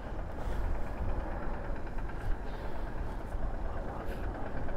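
Ottobock B500 electric wheelchair on the move, giving a steady running noise of motors and tyres with a low rumble and a few light clicks.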